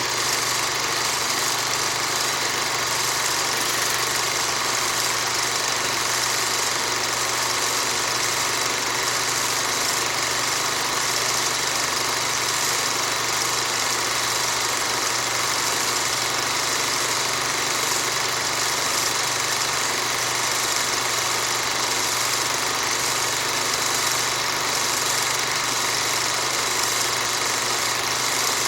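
Old film projector running: a steady mechanical whirr and rattle of the motor and film transport, with an even hum underneath, unchanging throughout.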